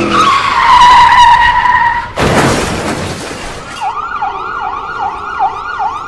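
Sound effects of car tyres screeching, then a loud crash of noise about two seconds in, then an ambulance siren in fast, repeating rising-and-falling sweeps.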